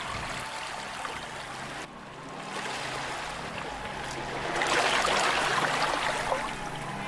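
A steady rushing noise with an abrupt change about two seconds in, growing louder for a couple of seconds near the end.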